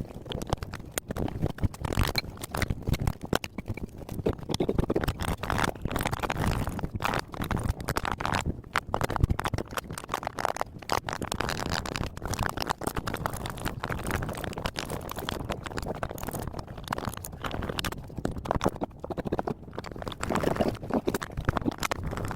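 Irregular knocking, clattering and scraping of tools against the metal and plastic parts of a top-loading washing machine being dismantled for scrap.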